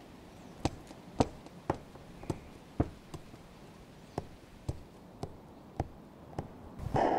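A dozen sharp, dry taps, irregularly spaced about two a second, over a faint hiss. Just before the end a loud sustained drone comes in suddenly.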